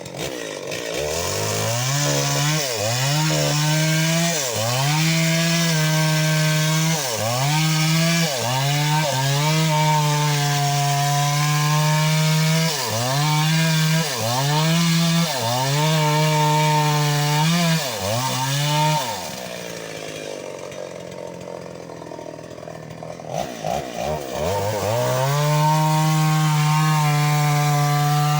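Stihl 381 two-stroke chainsaw cutting mahogany at high revs, its pitch dipping briefly about once a second as the chain loads up. About two-thirds of the way through it drops to a quieter idle for a few seconds, then revs back up to full speed.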